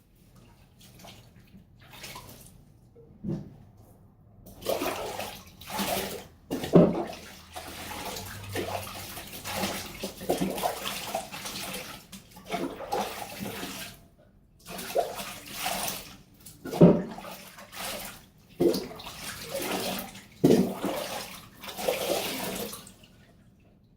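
Bath water splashing and sloshing in a tub in irregular bursts while a small dog is bathed.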